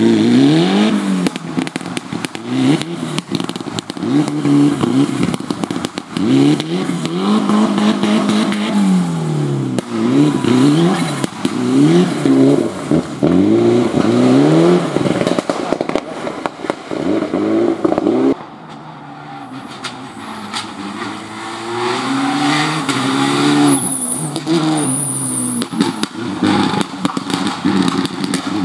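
Rally car engine revving high and dropping again and again through quick gear changes on a gravel stage. After a sudden cut about two-thirds of the way through, a second rally car is heard more quietly, its revs rising and falling as it passes.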